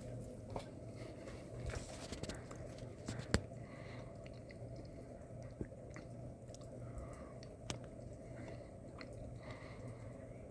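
Harbor Breeze Alaska 42-inch ceiling fan running: a steady motor hum that swells and fades evenly, with scattered light clicks, the loudest about three seconds in.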